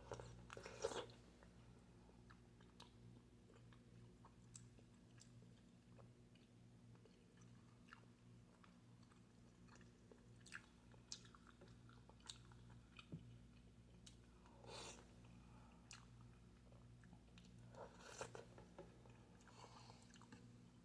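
Faint chewing and biting sounds of a person eating, mostly soft scattered clicks, with a few louder mouth noises near the start and twice in the second half. A low steady hum runs underneath.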